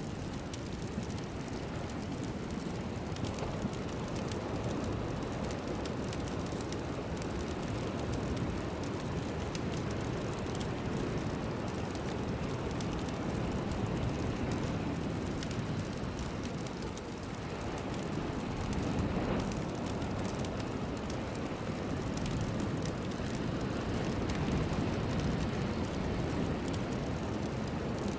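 Steady rushing noise bed of a meditation sound track, weighted to the low range, with faint scattered crackling ticks on top, like a rain soundscape.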